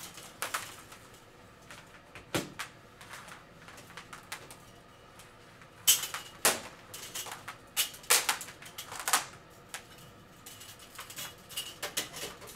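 Scattered clicks, knocks and rustling as electrical cords are pulled through the holes of a billiard light's metal crown, with the crown knocking lightly as it is handled and set onto the fixture.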